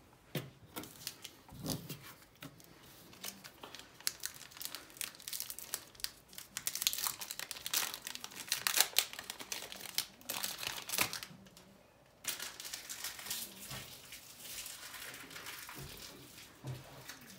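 Trading card pack wrappers crinkling and tearing as packs are ripped open, in a string of rustling bursts. They are loudest about seven to eleven seconds in, with a short lull near twelve seconds.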